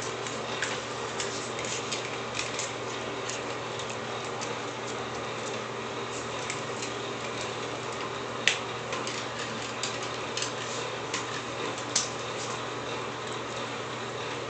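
Steady low machine hum, with scattered light clicks of a dachshund's claws on a tile floor as it moves about and noses a toy; the sharpest clicks come about 8.5 and 12 seconds in.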